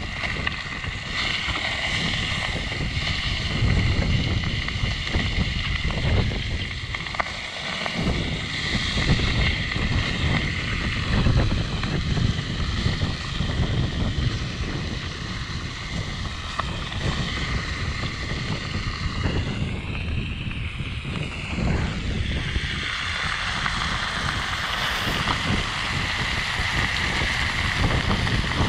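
Wind buffeting the microphone in an unsteady low rumble, over a steady hiss.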